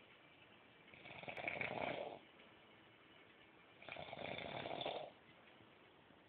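A sleeping person snoring: two long snores about three seconds apart, each lasting a little over a second.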